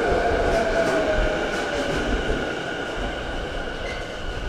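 Electric commuter train with a Mitsubishi IGBT VVVF inverter braking into the platform: its motor whine falls in pitch and fades over the first second or so, over steady high inverter tones and the rumble and clatter of the wheels on the rails.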